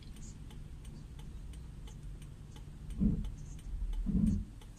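Raindrops ticking on a car's windscreen and roof over the low hum of the idling car, with two dull thumps about three and four seconds in.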